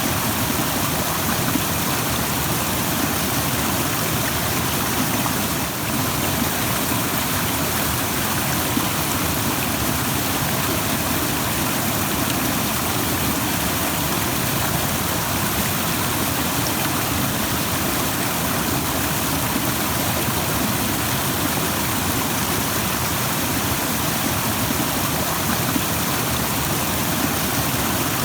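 Rushing stream water flowing steadily, a constant even rush with no breaks.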